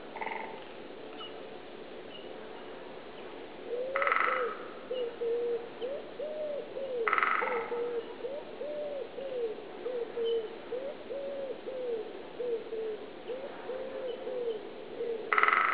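Great spotted woodpeckers drumming: three short rapid rolls, about four seconds in, about seven seconds in and near the end, territorial drumming to attract a mate. Under them, from about four seconds in, a common wood pigeon coos its repeated five-note phrases.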